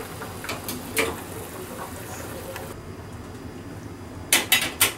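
Broth simmering with pieces of atsuage (thick fried tofu) in a pot, a steady bubbling hiss with a few small pops. It cuts off abruptly a little past halfway, and near the end come three sharp clicks in quick succession.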